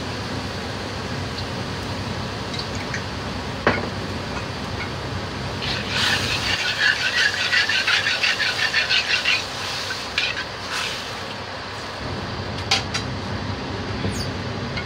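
Metal ladle scraping and stirring around the inside of a steel wok in rapid strokes for about four seconds midway, over steady low background noise. A single click about a third of the way in, and a couple of light clinks near the end.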